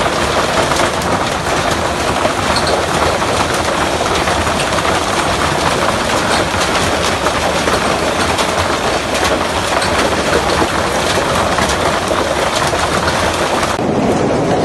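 Hailstorm: a dense, loud clatter of hailstones pelting the ground and nearby surfaces, driven by strong wind. About a second before the end the sharp clatter gives way to a duller rush of wind and hail.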